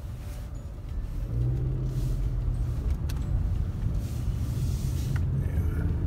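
Toyota Camry's four-cylinder engine running with road noise, heard from inside the cabin while driving: a steady low hum whose note strengthens for a second or so about a second and a half in. The engine has a cylinder misfire that the owner traces to a faulty ignition coil pack.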